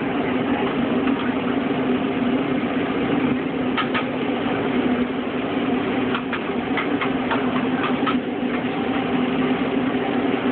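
Steady motor hum, like an engine idling, with a few sharp clicks about four seconds in and a cluster between six and eight seconds in.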